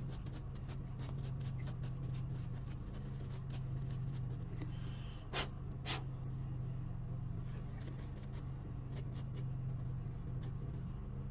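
Light scratching and small clicks of the inside of an opened Andis Ultra Edge clipper housing being cleaned out, with two sharper clicks about halfway through, over a steady low hum.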